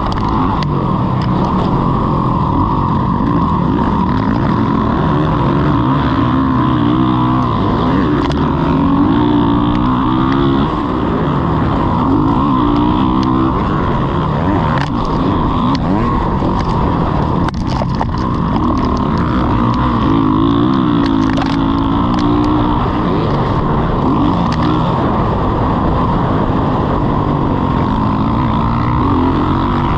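Motocross dirt bike engine revving up and dropping back again and again as the throttle is opened and closed around the track.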